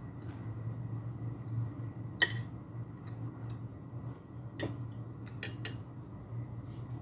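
Metal spoon and fork clinking and scraping against a ceramic plate while eating rice, about five sharp clinks, the loudest about two seconds in, over a steady low hum.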